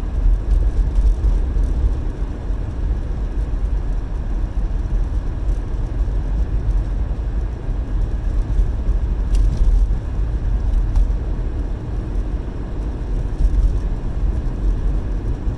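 Steady engine and tyre rumble of a car being driven, heard from inside the cabin, with a faint click about nine and a half seconds in.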